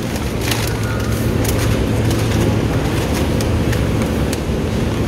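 Steady low hum of a supermarket freezer aisle, with scattered clicks and crinkles of a plastic-wrapped food pack being handled at an open freezer door.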